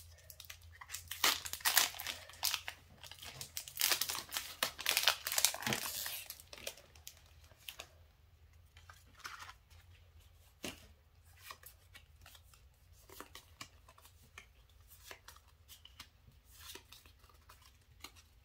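Foil wrapper of a Pokémon trading-card booster pack crinkling and tearing as it is opened, dense for about the first six seconds, then only scattered light rustles and clicks.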